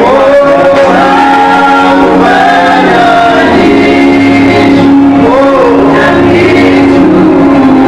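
Gospel worship singing with musical accompaniment, voices holding long sustained notes.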